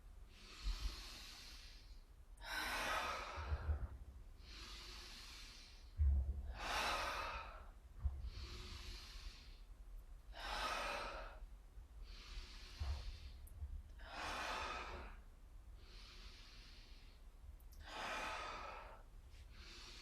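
A person breathing deeply and audibly in a slow, even rhythm, stronger breaths alternating with softer ones, one full breath in and out about every four seconds, paced to a seated yoga spinal-pumping movement.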